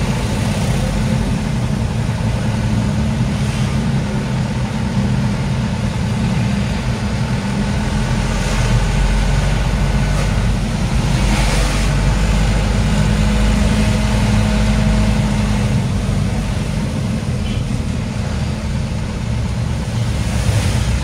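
Truck engine running and road noise while driving, with two brief swells of noise midway.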